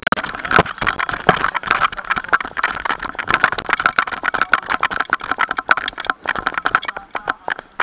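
Continuous irregular rattling and rubbing from a camera being jolted against a runner's body and clothing while running with a fire hose.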